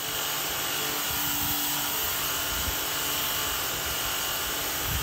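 Cordless battery-powered pressure washer spraying a water jet against a surface, its pump motor giving a steady hum under the hiss of the spray. It is running on its low setting, which makes the spray weak.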